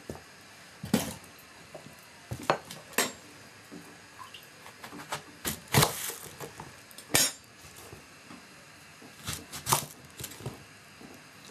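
Kitchen clatter of pots, pans and utensils: irregular knocks and clinks, some ringing briefly, with the loudest around the middle.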